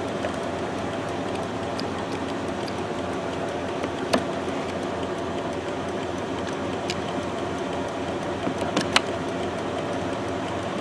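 Steady hum of an idling engine, even and unchanging, with a few sharp clicks and taps from handling parts, one about four seconds in and two close together near the end.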